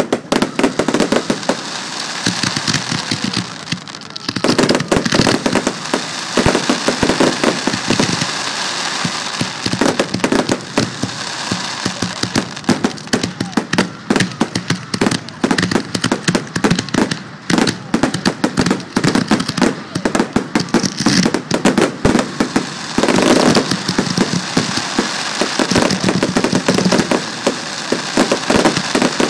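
Aerial fireworks bursting in rapid, overlapping succession: a dense barrage of bangs and crackling with no gaps, starting abruptly.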